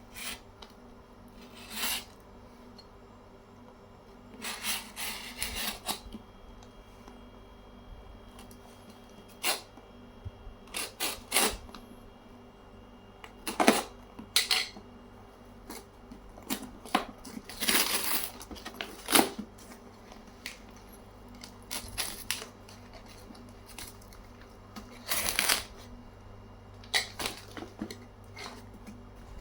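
Unboxing handling sounds from an iPad 10 and its packaging: irregular rustles of box and wrapping with sharp taps and clicks. A few longer rustles stand out.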